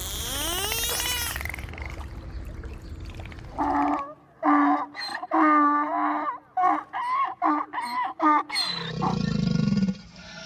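A string of animal calls. A rising cry comes first, then a run of about ten short, choppy pitched cries a few seconds in, and near the end a low growl.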